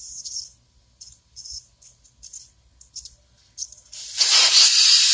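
Air hissing out of a truck tyre's valve stem: short spurts while the valve core is worked loose, then about four seconds in a loud, steady rush as the core comes out and the tyre deflates.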